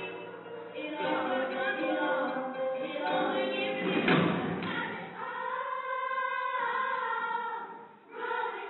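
A girls' choir singing sustained chords, with a thud about four seconds in; the singing fades out shortly before the end.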